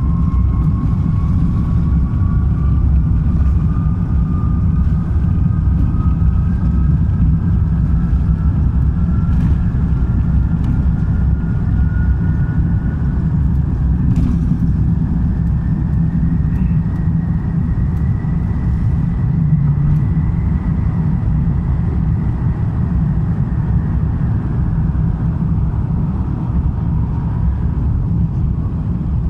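Cabin sound of an Airbus A350-1000 with its Rolls-Royce Trent XWB engines at high power: a loud, steady rumble with a thin engine whine that climbs slowly in pitch over about twenty seconds and then fades, typical of the takeoff roll and climb-out.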